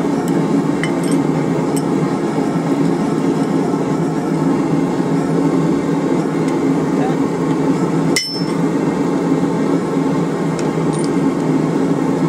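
Hammer striking a steel number stamp held against a wrench bracelet on the anvil horn, stamping the number 10: a handful of sharp strikes spread through, the clearest about eight seconds in. Under them runs a steady, louder roar from the lit forge.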